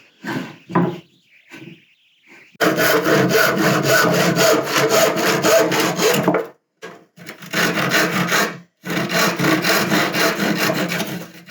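Handsaw cutting through rough reclaimed wood in three spells of rasping strokes, the longest starting a few seconds in, with brief pauses between. The saw is blunt, so the cut goes slowly.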